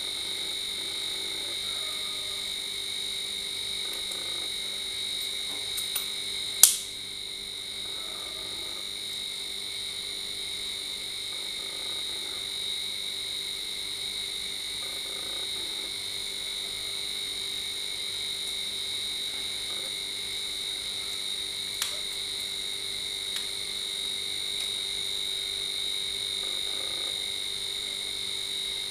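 Steady, high-pitched chorus of calling frogs. A single sharp click about seven seconds in is the loudest sound, with a few fainter clicks around it and near the end.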